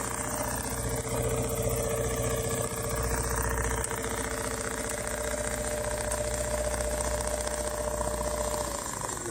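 Automatic CNC sewing machine running steadily with an even motor hum. Near the end the hum falls in pitch as the machine slows down.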